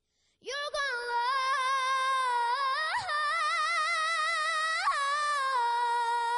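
A young girl singing unaccompanied into a handheld microphone, coming in about half a second in and holding one long note with a steady vibrato, broken by brief upward flicks of pitch, ornaments that recur every second or two.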